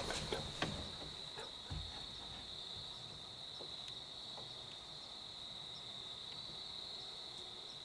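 Crickets chirring in a steady, high-pitched drone, with a few faint clicks and a soft low thump in the first two seconds.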